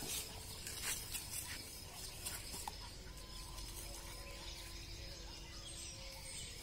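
Quiet open-air background with faint distant bird calls, and a few soft rustles of the puppies moving through dry grass in the first couple of seconds.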